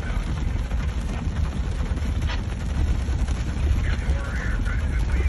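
Rushing flash-flood water running steadily, with a heavy low rumble of wind buffeting the microphone.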